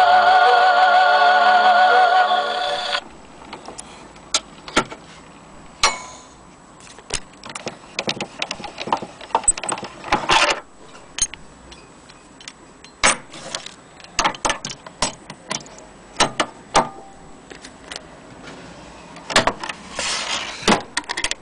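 HMV Model 101 portable gramophone playing a sung 78 rpm record through its No. 4 soundbox, cut off about three seconds in as the soundbox is lifted from the disc. Then a string of sharp clicks, knocks and light metal rattles from handling the machine, its winding crank and its lid, loudest in a cluster near the end.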